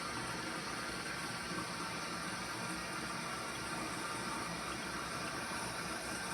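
Toilet water running with a steady, even hiss.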